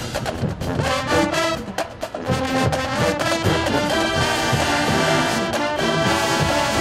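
A marching band playing: a full brass section of trumpets, trombones and sousaphones over drums. Drum hits punctuate the brass in the first couple of seconds, then the band moves into long held chords from about four seconds in.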